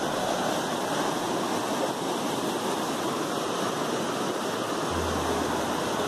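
Steady rushing of river water pouring over a concrete weir and churning white below it.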